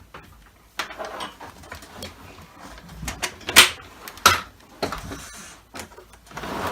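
Hard plastic knocks and clatter from handling a Dyson DC25 upright vacuum cleaner as it is tilted back, with the two sharpest knocks about three and a half and four and a quarter seconds in.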